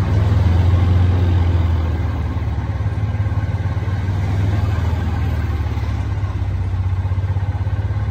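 Golf cart motor running steadily as the cart drives slowly along, a constant low hum with a fast, even pulse.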